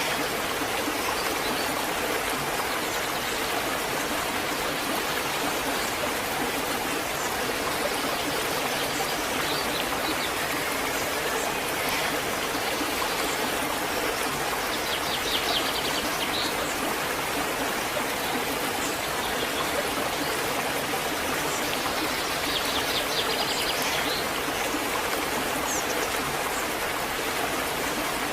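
Waterfall rushing steadily. A bird sings two short rapid trills, about halfway through and again several seconds later.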